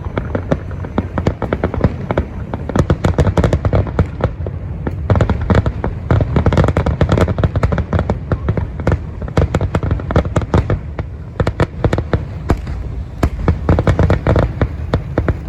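Fireworks display: a dense, continuous run of rapid bangs and crackles over a steady low rumble.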